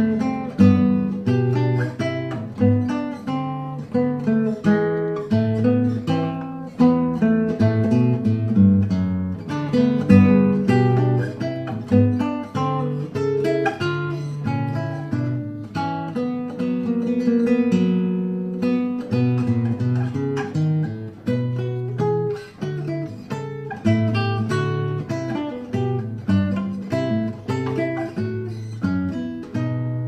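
Background music played on acoustic guitar: a continuous run of plucked notes and chords.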